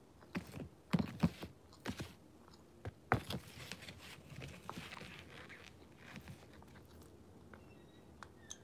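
Biting and crunching crumbly chunks of home-baked white powder, with a few sharp crunches in the first three seconds, then quieter chewing.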